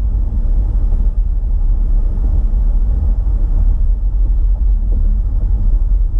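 Steady low rumble of a car driving along a highway: road and engine noise.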